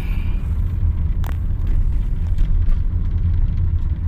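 Steady low rumble of a car's engine and road noise, heard from inside the moving car's cabin, with a single sharp click about a second in.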